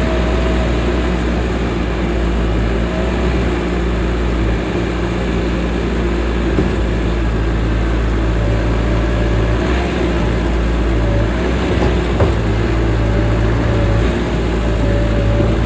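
Skid steer's engine running steadily: a low hum with a faint wavering whine above it, and one sharp knock about twelve seconds in.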